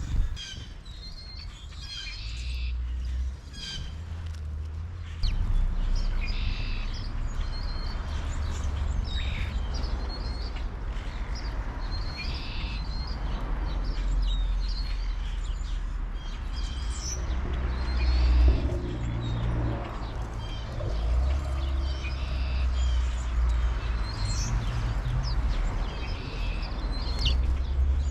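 Small songbirds chirping, with short high calls scattered throughout, over a steady low rumble.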